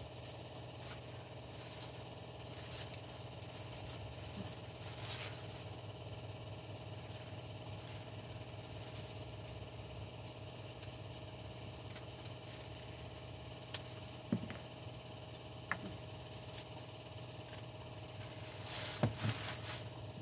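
A sharp kitchen knife cutting, with scattered light clicks of the blade on the board, over a steady low hum.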